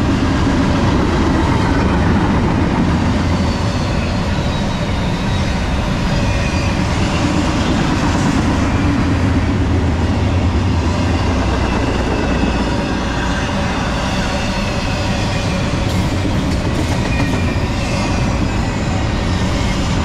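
Double-stack container well cars of a Norfolk Southern intermodal freight train rolling past: a steady rumble and rattle of steel wheels on the rails, with faint high wheel squeals now and then through the middle.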